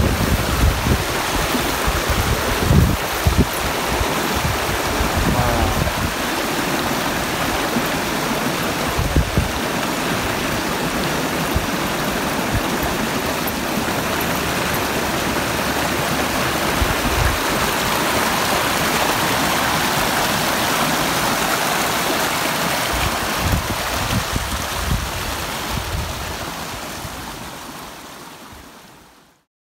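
Small mountain stream running over rocks: a steady rush of water, with low rumbles of wind on the microphone in roughly the first ten seconds. The sound fades out near the end.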